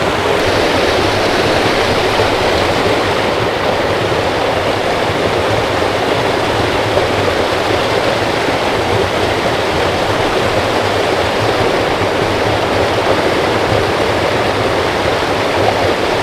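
Creek water rushing steadily, a loud, even hiss of flowing water.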